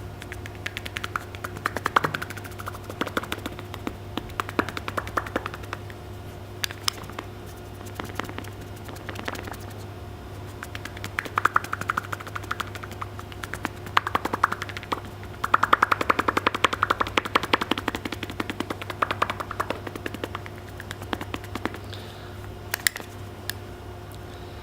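A big nut making a rapid rattling clatter of fast clicks, coming in irregular bursts, with the longest and loudest run a little past the middle.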